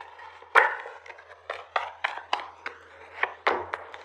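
Tarot cards being shuffled and handled on a table: a run of irregular sharp slaps and taps, with the loudest about half a second in.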